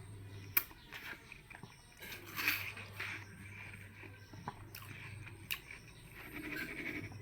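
A person biting and chewing watermelon: scattered crunches, with a few sharp clicks about half a second in and again around four and a half and five and a half seconds.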